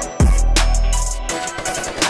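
Background music: a beat with a heavy bass drum hit about a quarter second in, its deep boom held for about a second before dropping away, over quick, regular hi-hat-like ticks.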